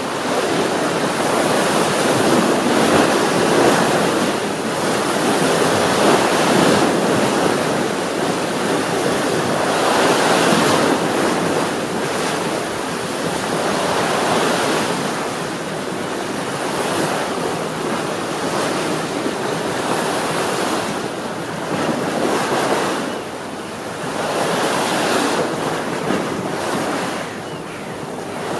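Sea waves breaking and washing onto a shore: a continuous rush of surf that swells and eases every three to four seconds.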